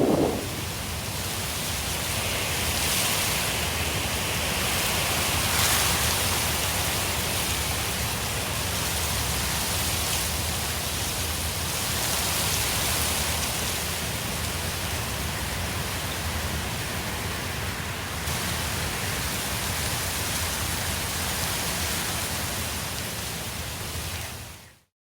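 Steady hiss of falling water, even and unbroken, fading out quickly near the end.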